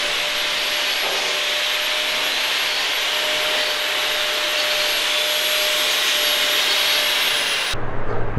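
Shop vacuum running steadily, a rushing of air with a steady whine over it, stopping abruptly near the end.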